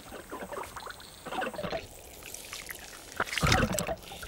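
Giant Gippsland earthworms gurgling and squelching as they move along their water-filled burrows underground. The gurgles are irregular, with a louder, deeper one about three and a half seconds in.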